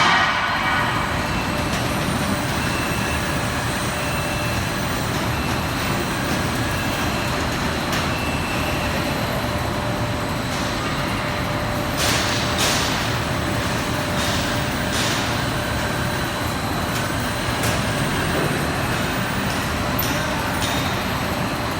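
Steady industrial machinery noise with a constant hum, broken by several short hisses like compressed air being released, the first about twelve seconds in.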